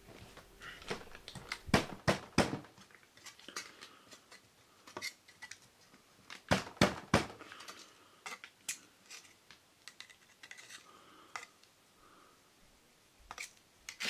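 Thin tin-can sheet metal clicking and crinkling as a pointed hole punch is worked through it on a wooden board. The clicks are irregular, with the loudest clusters about two seconds in and about halfway through.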